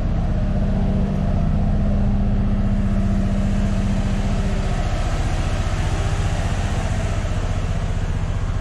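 Chevy Silverado's 6.0-litre V8 held at a fast idle of about 2,000 rpm, running steadily with an even pulse. It still has the noise of a stuck valve, which the owner finds the valve-freeing liquid has not yet cured.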